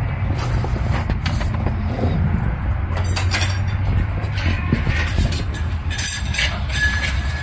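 Metal transmission parts clinking and clattering as they are handled and fitted into an aluminium CVT case. The loudest clusters come about three seconds in and again around six to seven seconds, with a brief metallic ring near the end. A steady low rumble runs underneath.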